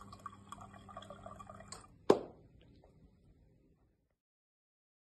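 Homemade cocktail-mixing machine dispensing a drink: a small motor hums steadily for about two seconds while liquid trickles and drips into a glass, then one sharp clack about two seconds in, the loudest sound.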